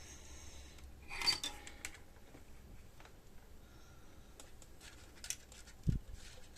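Small metallic clicks and clatter of tools and parts being handled on an electronics workbench during kit soldering, loudest about a second in, with a dull thump near the end.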